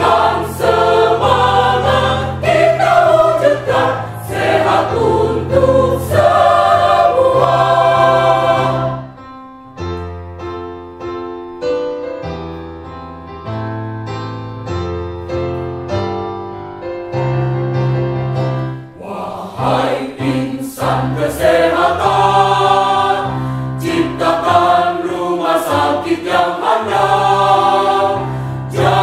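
Mixed choir of men and women singing together. The choir sings loudly, drops to a softer passage for about ten seconds in the middle, then swells back to full volume.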